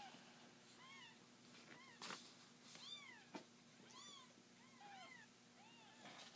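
Three-week-old kitten mewing over and over, faint thin high-pitched mews that rise and fall, about one a second, with a couple of light knocks between them.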